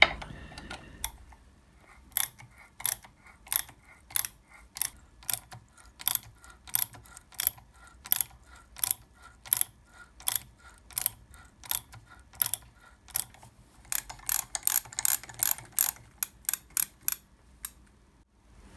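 M5 spiral-fluted tap being turned by hand to cut a thread in a steel gear hub, with a regular series of sharp clicks about one every 0.7 seconds. Near the end the clicks come faster, about four a second, and then stop.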